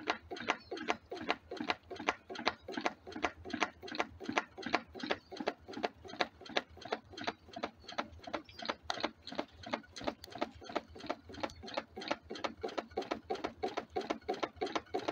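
Home-built alpha Stirling engine running, with a quick, even knocking at about four to five knocks a second that almost sounds like a ball bouncing. The knocking comes from the new silicone rubber hot-side seal, which the builder thinks is also hitting the swing arm.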